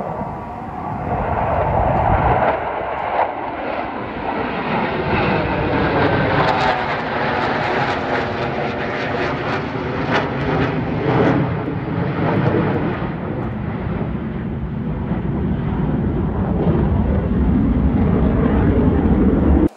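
Formation of four twin-engine Sukhoi jet fighters flying over, a loud continuous jet roar whose pitch bands sweep as the formation passes.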